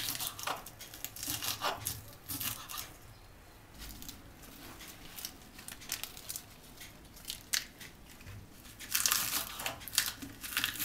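Kitchen knife chopping crisp lettuce leaves on a wooden cutting board: a run of short crunchy cuts that pauses briefly about three seconds in, then a quicker burst of chopping near the end.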